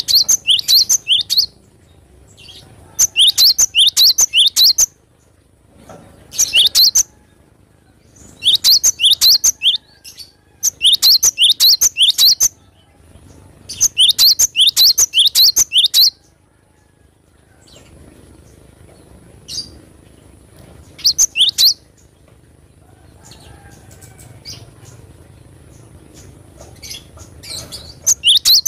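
Glatik batu (cinereous tit) singing energetically: bursts of rapid, sharp, repeated high notes, each note sweeping downward, in phrases of one to two seconds separated by short pauses, with a longer pause in the second half.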